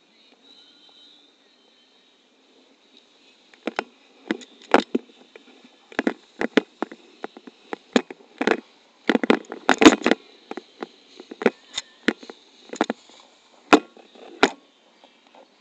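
Irregular knocks, thumps and rustles close to the microphone, as a pilot moves about and handles gear after a paraglider landing. They come sparse at first, gather into a dense flurry about two-thirds of the way through, then thin out, over a faint steady high hiss.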